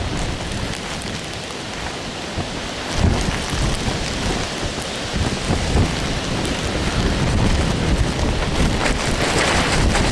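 Hurricane wind and rain: a steady hiss of rain with gusts rumbling on the microphone, growing louder from about three seconds in.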